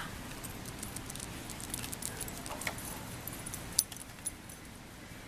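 Light metallic jingling and clinking, a loose run of small high ticks for about four seconds with one sharper click near its end, over steady outdoor background noise.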